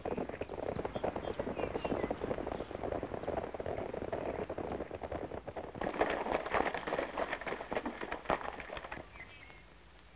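Hoofbeats of a group of horses galloping on a dirt road, a dense clatter that grows louder about six seconds in and dies away shortly before the end.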